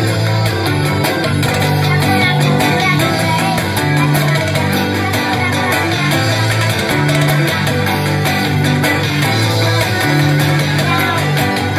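Acoustic guitar playing an instrumental passage of chords over bass notes that change about once a second, with no singing.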